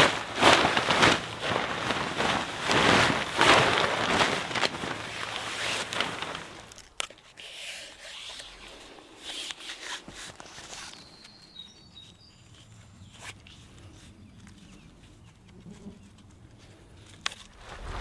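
A large tarp being shaken out and flapping for about the first six seconds, a loud ragged rustle. Then quieter handling of tarp and cord with a few sharp clicks, and a couple of faint bird chirps near the middle.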